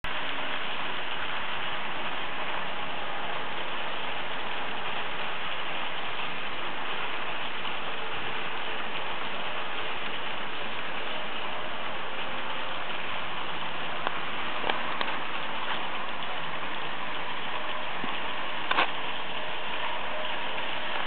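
H0 scale model trains running on a Märklin layout: a steady rattle of small wheels on the track and the hum of the locomotives' little motors, with a few sharper clicks in the second half.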